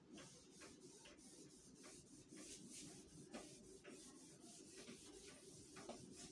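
Board eraser wiping chalk off a chalkboard: a faint run of short, repeated rubbing strokes.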